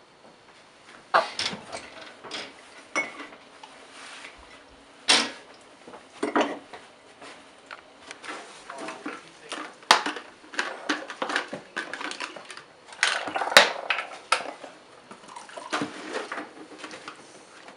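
Ceramic mugs and plastic bottles being picked up and set down on a tiled countertop: irregular clinks, knocks and clatters.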